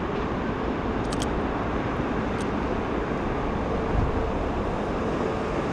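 Steady road traffic noise with a faint hum and a brief low thump about four seconds in.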